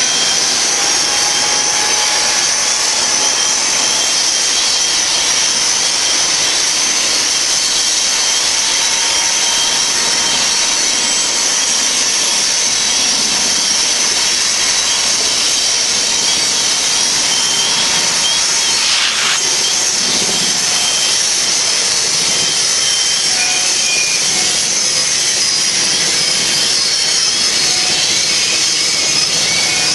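Freight cars of a long BNSF manifest train rolling past on a curve: a steady, high hiss and grind of steel wheels on rail. Thin squeals from the wheels come and go over it.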